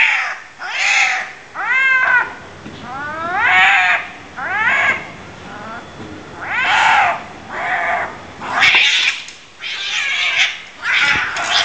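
Two domestic cats fighting, caterwauling in a string of about ten loud yowls and screams, roughly one a second, with pitch swooping up and down; the last few cries are harsher, noisier screeches.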